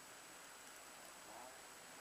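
Near silence: a faint steady hiss with a thin high whine, and a brief, very faint pitched sound about one and a half seconds in.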